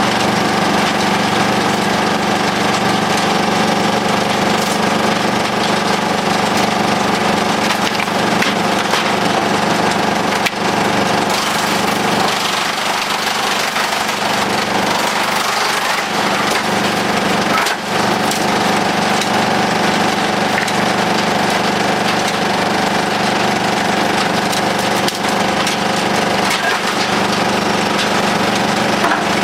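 Demuth DPM drum chipper, driven off a 400 hp Massey Ferguson tractor's PTO, chipping rubberwood under load. Wood cracks and splinters through the drum over the steady drone of the tractor engine and the spinning drum, with a few brief dips as the feed changes.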